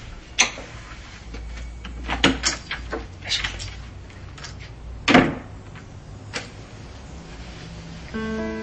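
A door being opened and shut: several short clicks and knocks from the handle and door, the loudest about five seconds in. Acoustic guitar music starts just before the end.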